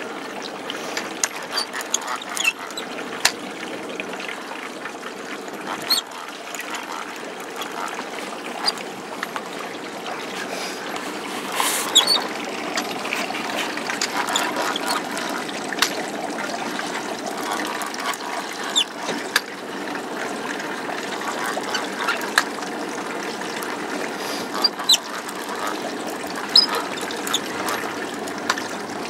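Sea water sloshing and lapping against a boat's hull, with scattered sharp clicks and knocks throughout, one louder about twelve seconds in.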